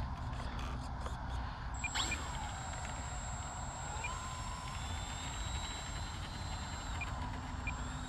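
Electric motor and propeller of a VMAR L-19 Bird Dog RC plane spinning up about two seconds in for a takeoff roll: a thin high steady whine with a motor tone that rises through the middle and drops back near the end as the throttle changes.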